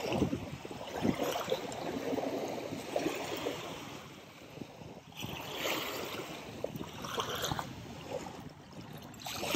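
Small waves lapping on a sandy shore, washing up and drawing back. The wash swells again about five seconds in and just before the end.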